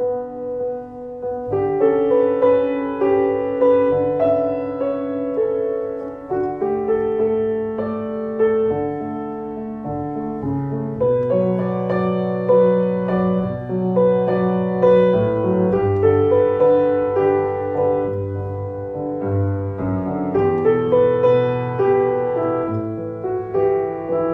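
Background piano music: a gentle melody over held chords.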